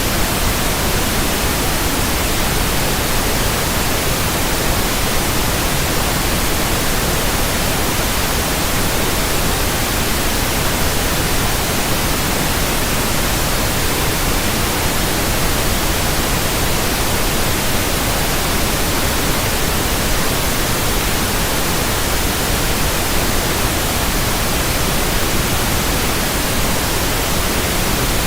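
Loud, steady static hiss: an even rush of noise across all pitches that does not change.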